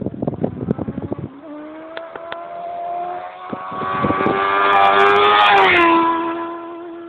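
Wind buffeting the microphone for about the first second, then a motorcycle engine coming closer at speed, growing louder with a slowly rising pitch. It passes close about five and a half seconds in with a sharp drop in pitch and fades away.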